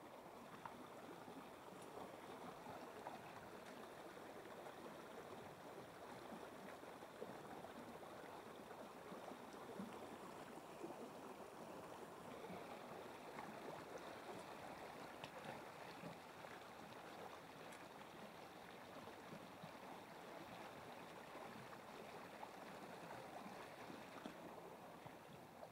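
Faint, steady rush of a small creek's flowing water, with a few light ticks.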